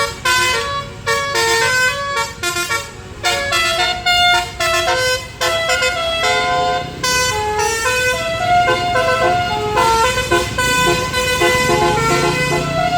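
A bus's basuri musical air horn, several trumpets together, playing a quick melody of short notes that change pitch every fraction of a second, with the engine running underneath and getting louder near the end.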